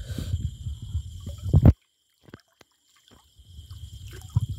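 Hands sloshing and splashing in shallow river water while grabbing fish, with low, irregular rumbling and knocks close to the microphone and a louder knock about a second and a half in. The sound then cuts out completely for about two seconds before the sloshing resumes.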